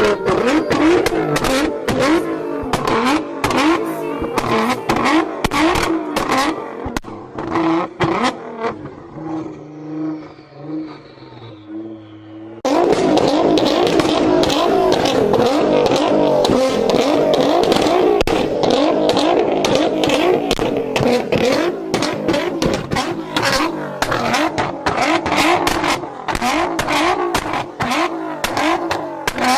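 GT-R sports car engine revving and accelerating hard, its pitch swinging up and down repeatedly. It drops to a quieter, steadier run around nine seconds in, then jumps abruptly back to full throttle about thirteen seconds in.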